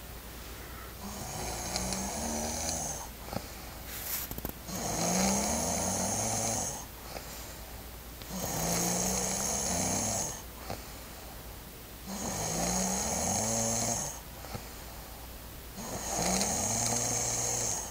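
A woman snoring in her sleep: five long snores, about one every four seconds, each a low drone with a breathy hiss.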